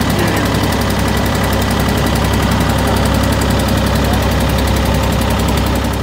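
Boat engine running steadily with an even low drone while the boat moves through the water.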